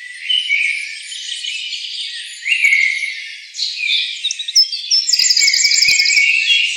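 Dense chorus of tropical rainforest birds: overlapping chirps, whistles and trills, with a fast run of high repeated notes about five seconds in. The sound is thin, with no low end.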